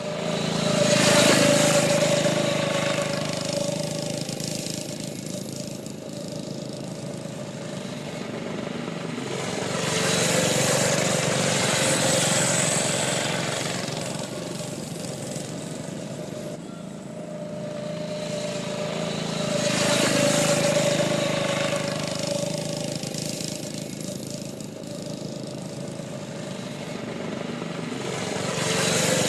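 Off-road ATV engine running under way, swelling louder and easing back about every nine to ten seconds.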